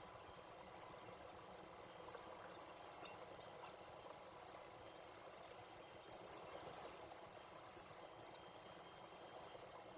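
Near silence: faint, steady background hiss with a thin, constant high whine and a few faint ticks.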